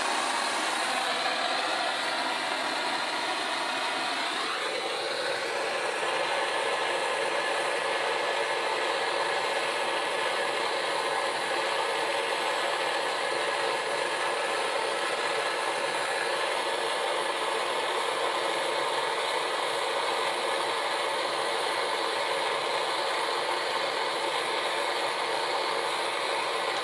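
Handheld gas blowtorch burning with a steady hiss, heating an aluminium bracket for brazing with aluminium rod. The sound deepens slightly about five seconds in.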